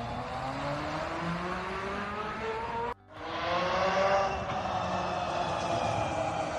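Tesla Semi electric truck accelerating, its electric drive motors whining in a pitch that climbs steadily over tyre and road noise. The sound cuts out abruptly about three seconds in, and a second clip of the truck follows with a louder whine that rises, then levels off.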